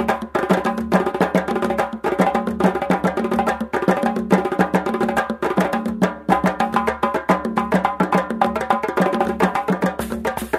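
Background music with fast, busy percussion over steady pitched tones.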